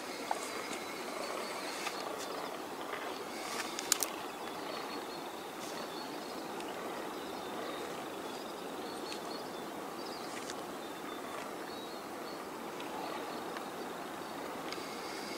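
Outdoor countryside ambience: a steady background hiss with faint, scattered bird chirps, and a couple of sharp clicks about four seconds in.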